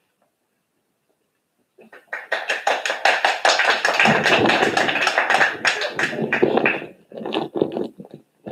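Hand clapping from a few people, starting about two seconds in and dying away after about five seconds.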